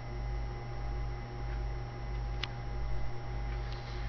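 Steady electrical mains hum with a few faint handling clicks, one sharper click about two and a half seconds in.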